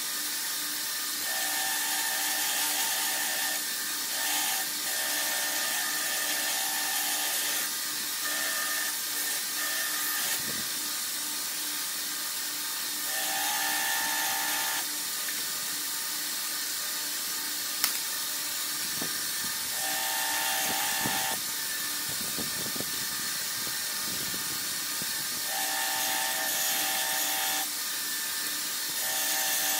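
Belt grinder running steadily while the steel blade of a forged chopper is ground against the belt, the grinding sound coming and going in spells of a second or two. One sharp click comes about 18 seconds in.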